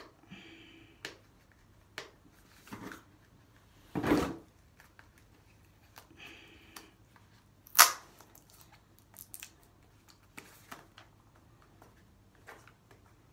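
Fingers picking and scratching at the sealed packaging of a cosmetic eyeshadow palette, trying to get it open: scattered small clicks and rustles, with a louder knock about four seconds in and a sharp click near eight seconds.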